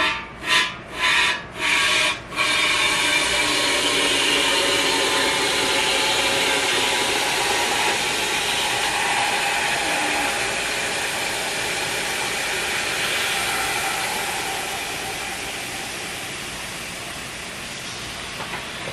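Can of expanding spray foam insulation being discharged through an ATV tire's valve stem: a few short spurts, then a long steady hiss that fades slowly toward the end. Air is heard hissing out of the puncture hole at the top of the tire as the expanding foam displaces it.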